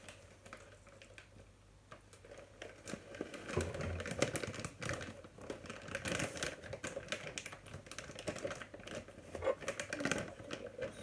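A packet being opened by hand: crinkling and rustling with many small irregular clicks, starting about two seconds in.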